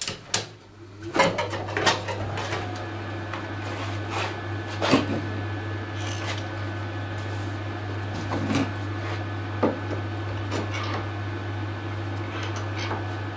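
Arc welder switched on about a second in and humming steadily, with scattered knocks and clatter as the welding cables and earth clamp are handled and set on the clamped workpiece.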